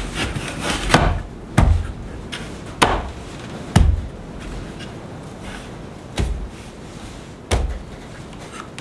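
Wooden knocks as a door's top rail is worked down onto the mortise-and-tenon joints of its stiles: about seven sharp knocks with a dull thud under each, at uneven intervals.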